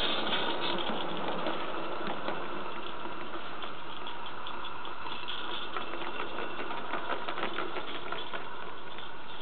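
Garden-railway model freight train running along the track: a steady rattle of wheels and covered wagons with quick, irregular clicks.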